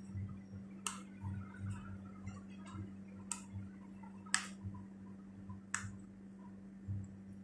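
Four sharp, irregularly spaced clicks from hair-styling tools being worked through hair, over a steady low hum.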